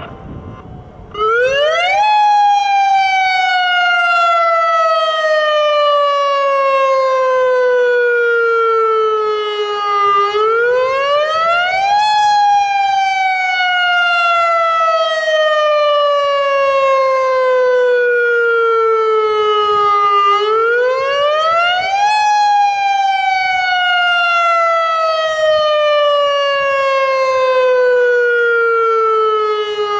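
Federal Signal Modulator electronic tsunami siren sounding its wail tone. It starts about a second in and loops three times: a quick rise in pitch, then a slow fall lasting about eight seconds. This wail is the tone used in a real tsunami emergency, here sounded as a drill.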